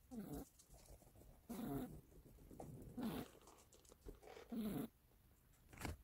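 A sleeping domestic cat snoring, a soft rasping snore about every second and a half.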